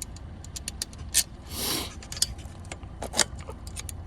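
Metal clicks and rattles of a bicycle trailer-bike tow-bar clamp being unscrewed by hand, with a sharper knock about a second in and again about three seconds in, and a short scrape just after the first knock.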